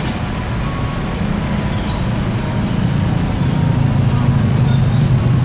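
Low, steady rumble of motor-vehicle traffic on the street, growing louder in the second half as a vehicle nears or idles close by.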